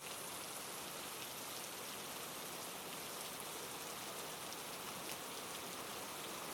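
Steady rainfall ambience, an even hiss of rain with faint scattered drop ticks.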